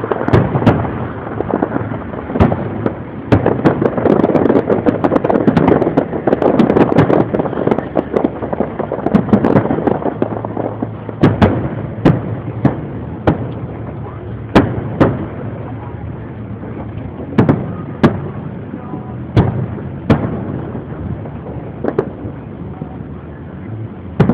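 Fireworks display: aerial shells bursting with sharp bangs. A dense run of overlapping bursts comes in the first part, then single bangs follow roughly a second apart.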